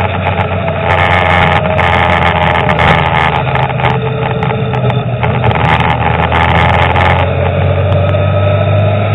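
Car driving along a road: engine running under a steady road hum, its note dipping a little and rising again near the end. From about a second in until about two seconds before the end, a rougher crackly hiss is laid over it.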